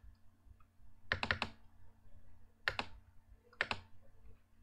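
Clicking at a computer: three short groups of two to four quick clicks, spaced about a second apart.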